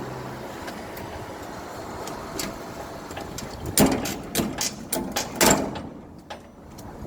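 Sharp metal clicks and knocks from hand tools, about ten in quick succession around the middle, over steady background noise, as a container's CSC plate is being riveted back in place.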